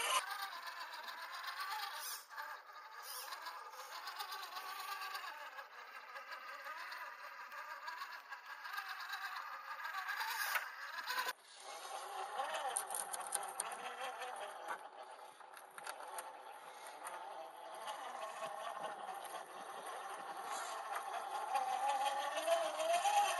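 Redcat Gen8 1/10-scale RC rock crawler's electric motor and gear drive whining while it crawls over rocks, the pitch wavering up and down with the load. The sound breaks off abruptly about eleven seconds in, then resumes.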